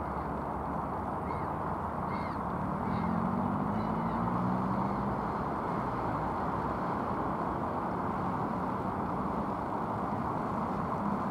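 Steady outdoor background rumble like distant traffic, with a low engine hum swelling briefly around three to five seconds in and four faint short calls between about one and four seconds in.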